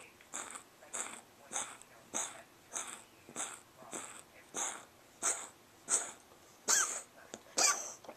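A cat coughing in a long run of short hacking coughs, about one every half second, with the two near the end louder.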